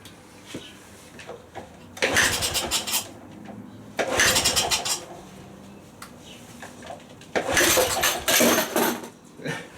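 Honda CT110 postie bike's single-cylinder four-stroke engine being cranked over in three short bursts without catching, on a first start with the choke on.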